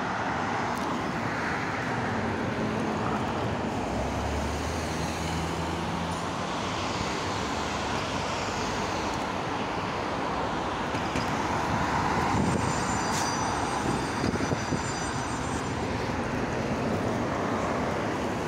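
Steady city street traffic: cars and MAZ-215 articulated diesel city buses driving past, with a low engine hum that swells for a few seconds early on and again later as a bus passes close.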